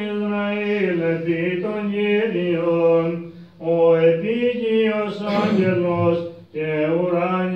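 Male voice singing Byzantine chant in long, drawn-out melismatic phrases, with two short pauses for breath.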